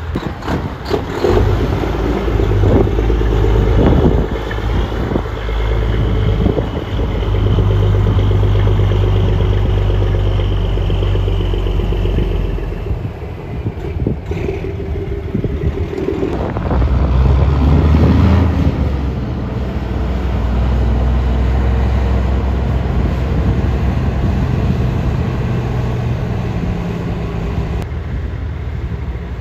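Semi truck's Detroit diesel engine pulling a loaded trailer past at close range, a deep steady engine note that sags in the middle and climbs again a few seconds later as the truck pulls on. A high whine rides over the engine for several seconds in the first half.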